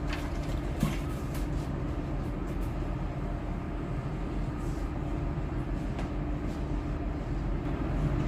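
Steady low rumble and hum of background machinery, with a couple of faint clicks.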